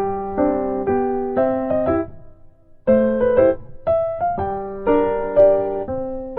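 Slow solo piano music: chords struck and left to ring, with a short break about two seconds in.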